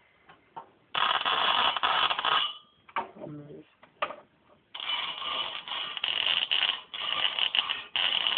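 A 555-timer-driven ignition coil throwing 15 kV sparks: a loud buzzing crackle of arcing, once for about a second and a half, then again for about five seconds near the end.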